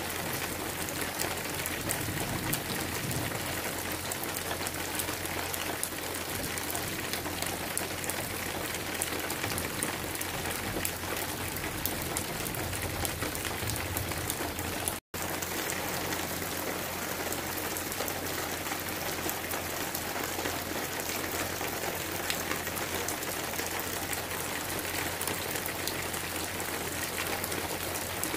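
Steady rain falling: an even hiss dotted with the ticks of single drops, broken by a split-second dropout about halfway through.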